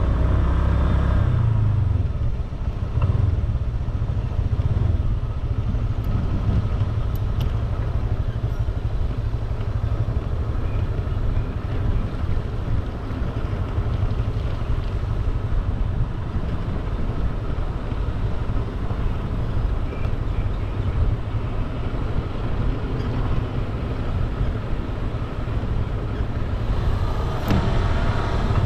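Scooter on the move: a steady, unbroken rumble of its small engine and road noise.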